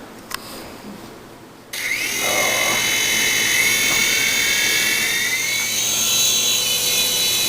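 Toy remote-control helicopter's motor and rotor starting suddenly about two seconds in, a high whine that rises in pitch over a few seconds as it spins up, then runs steadily.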